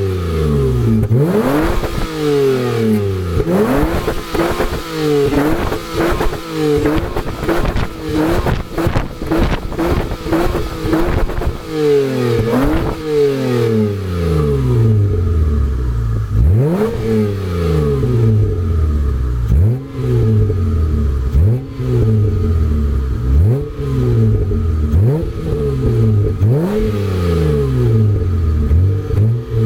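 Mitsubishi Galant's 2.5 L V6 revved again and again through a home-made exhaust. Each throttle blip rises quickly and falls back, about every one and a half to two seconds. For the first ten seconds or so the blips come short and choppy, with sharp cracks among them.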